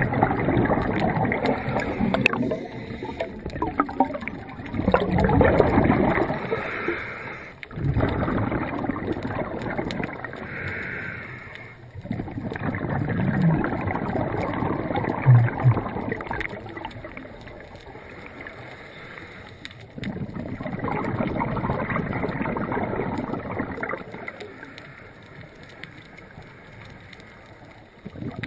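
Muffled sloshing and gurgling of seawater around an underwater camera as the swimmer moves, in uneven surges of a few seconds that start and stop sharply.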